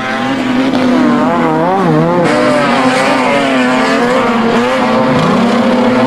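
Several rear-wheel-drive banger race cars running hard on a dirt oval, their engine notes overlapping and rising and falling as the drivers throttle on and off through the bend.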